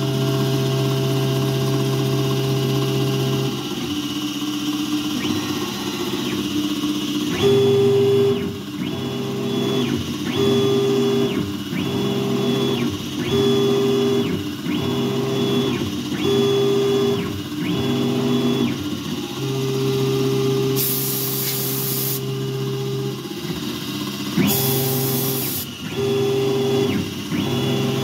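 Langmuir Systems MR-1 CNC mill running its spindle and cutting a metal part under flood coolant, with a steady machining tone. From about seven seconds in, the sound changes in a repeating pattern of roughly one-second passes as the cutter moves back and forth along the part. Two short bursts of hiss come near the end.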